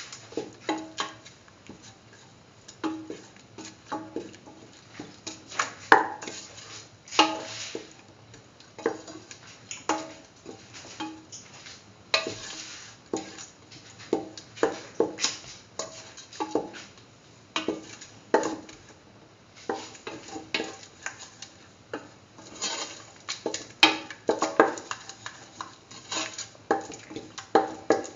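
A utensil stirring a thick spice paste in a metal pan, scraping and knocking against the pan in irregular strokes, often about a second apart.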